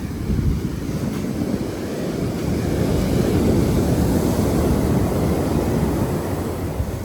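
Sea waves washing on the shore with wind on the microphone, swelling louder through the middle.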